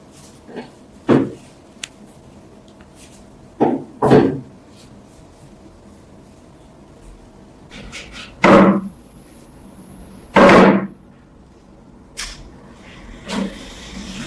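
A handful of separate knocks and clunks a few seconds apart, two of them longer clattering scrapes near the middle.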